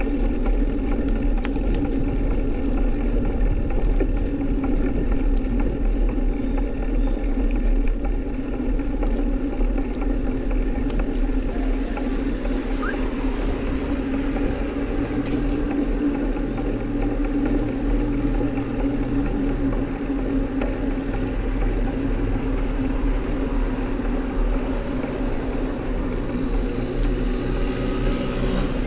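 Steady drone with a low rumble from a bicycle ride picked up by a GoPro action camera, keeping an even level throughout.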